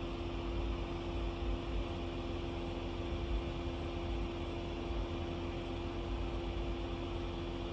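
Distant jet airliner's engines running steadily at taxi power: an even hum with two steady tones over an uneven low rumble.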